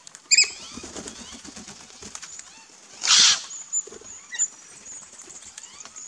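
Australian backyard birds at a seed feeder: a short loud call just after the start, soft chirps throughout, and a loud rush of wingbeats about three seconds in as a bird flies in.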